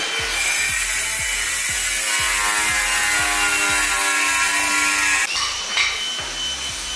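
A power tool cutting, with background music over it.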